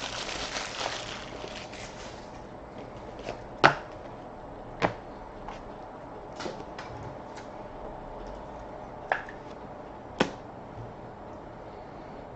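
Trading-card foil pack wrapper crinkling for the first two seconds, then a handful of sharp single taps and snaps as cards and packs are handled and set down.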